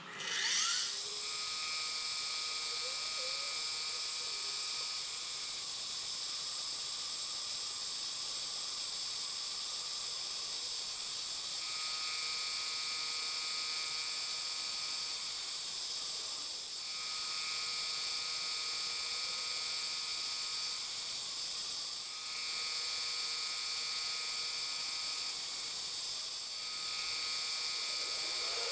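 Harbor Freight mini mill running, its spindle giving a steady high whine as an end mill cuts flats on a brass rod held in a dividing head. A second, lower whining tone comes and goes in spells of about four to five seconds.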